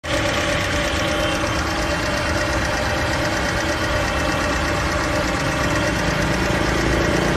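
Honda CR-V's four-cylinder engine idling steadily after a top overhaul of its cylinder head.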